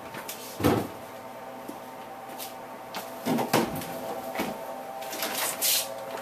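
Plastic picnic coolers being handled: a hard thump about half a second in, then a run of knocks as a cooler's plastic lid is lifted open, and a rustle near the end as hands reach inside. A steady hum runs underneath.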